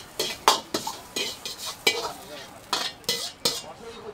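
Metal ladle scraping and clanking against a wok as noodles are stir-fried and tossed: about ten sharp, irregular strikes and scrapes, two to three a second, over a light frying sizzle.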